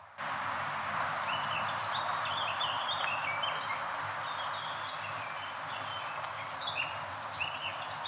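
Woodland songbirds singing: a series of sharp, very high chirps repeated several times, among quicker warbling phrases, over a steady rushing hiss.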